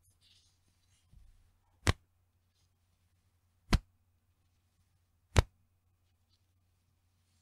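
Bra's elastic band snapping back with a sharp slap, three times at even intervals about two seconds apart.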